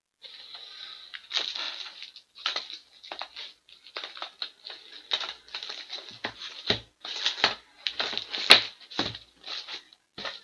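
Plastic card holders and packaging rustling and crinkling in irregular bursts as they are rummaged through, with one sharper click about eight seconds in.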